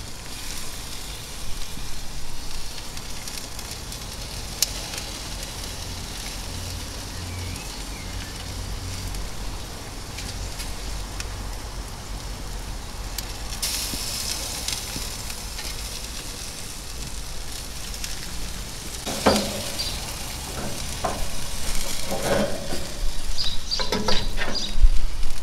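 Glazed pork ribs sizzling on a hot gas grill as they are basted, a steady crackling hiss. A few short, sharper knocks and clinks come in the last few seconds.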